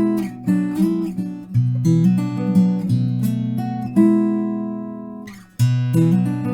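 EnneGi goldtop guitar being played: plucked notes and strummed chords. About four seconds in, one chord is left ringing and fades away for over a second before the playing picks up again.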